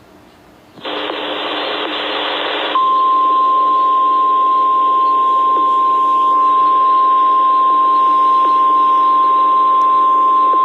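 Emergency Alert System tornado warning on FM radio: a brief burst of hissing static with a low hum, then about three seconds in the steady single-pitch 1050 Hz Weather Radio warning alarm tone sounds continuously over the hiss, the attention signal that comes before the spoken warning.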